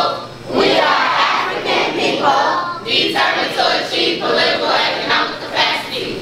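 A large group of children and adults reciting a school pledge together in unison, many voices chanting the words in time.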